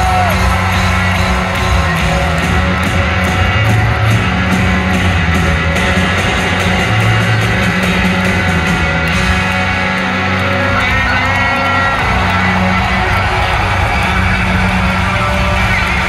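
Live rock band playing loud in an arena, with electric guitars, bass and drums, heard from among the audience.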